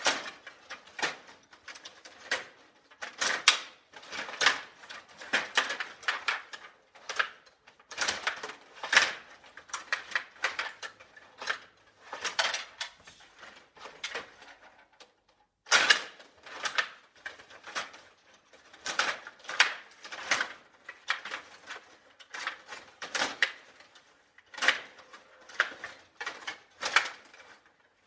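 Stiga Play Off table hockey in fast play: a rapid, irregular clatter of plastic clicks and knocks as the rod-driven players strike the puck and the rods rattle in their slots. It pauses for about two seconds midway and resumes with one loud knock.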